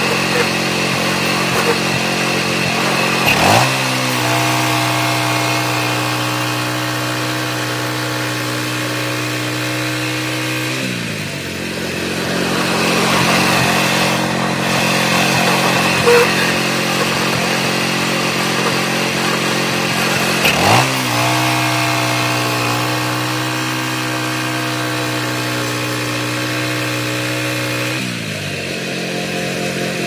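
Manual portable band sawmill's engine running steadily while the band blade saws boards from a hemlock cant. The engine note changes sharply about three seconds in and again about twenty seconds in, and drops back each time some seven seconds later.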